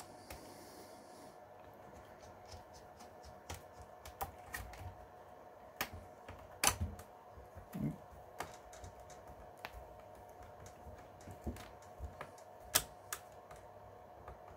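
Irregular small clicks and taps of hands working on a laptop's screen panel and hinges, a few of them sharper knocks, over a faint steady hum.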